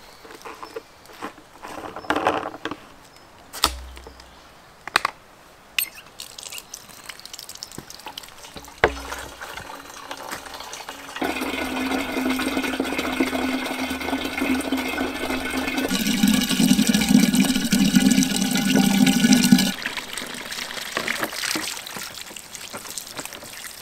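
Water from an outdoor tap pouring into a plastic water container, a steady filling rush that begins about halfway through, grows louder in its last few seconds and cuts off suddenly. A few knocks and thumps come before it.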